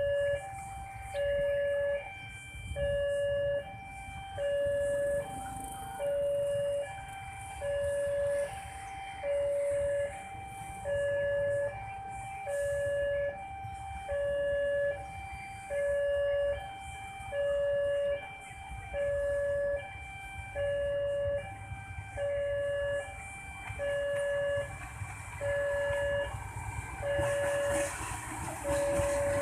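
Railway level-crossing warning alarm ringing: an electronic two-tone ding repeating about once a second. Near the end, the noise of the approaching diesel train grows underneath it.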